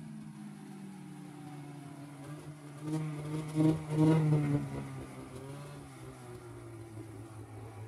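2005 Arctic Cat Sabercat snowmobile's two-stroke engine idling with a steady buzz. A few quick blips of throttle about three to four and a half seconds in raise the pitch and loudness briefly before it settles back to idle.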